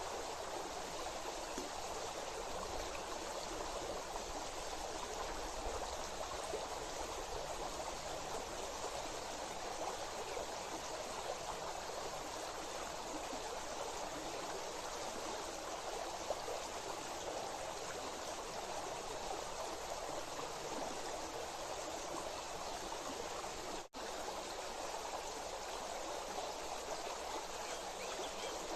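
Steady rush of running water, an even hiss with no pauses, that cuts out for an instant near the end.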